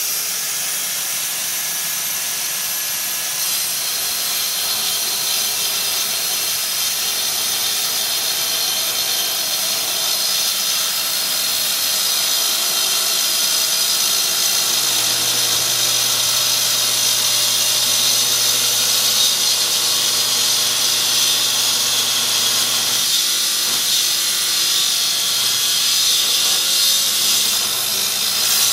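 Festool track saw running on its guide rail and cutting slowly through a thick live-edge hardwood slab. It gives a steady high whine over the hiss of the dust extractor, which is hooked to the saw.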